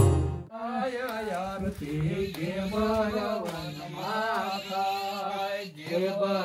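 Sitar music breaks off about half a second in, and a single voice begins singing a Gujarati devotional aarti in long melodic phrases that rise and fall.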